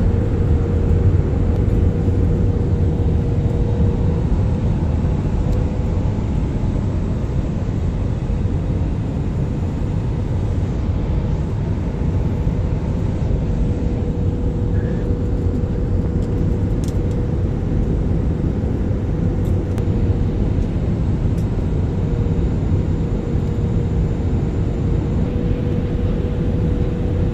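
Steady cabin noise inside an Airbus A320 on approach to landing: a low rumble of engines and airflow with a faint steady hum above it.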